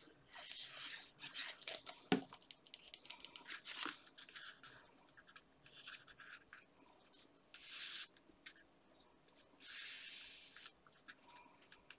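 Paper and card being handled: a card strip is set on the card and pressed down by hand, giving soft rustles and clicks with one sharp tap about two seconds in. Two longer rubbing swishes follow near the end as fingers smooth the strip down.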